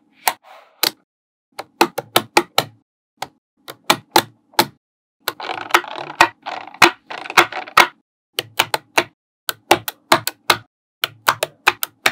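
Small magnetic balls clicking sharply as they snap onto a wall built of the same balls, in quick irregular clicks. The clicks come thicker with a rattle of loose balls between about five and eight seconds in.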